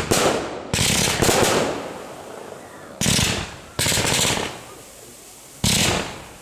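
Fireworks display: about six sharp bangs of aerial shells bursting, each dying away over a second or so with crackle, the gaps between them uneven, up to about two seconds.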